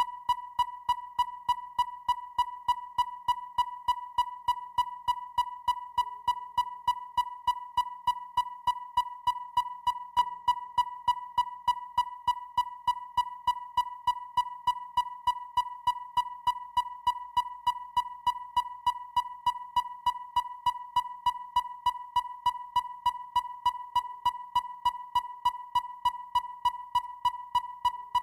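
Electronic depth finder sounding: a steady high-pitched tone with a sharp tick repeating evenly about three times a second.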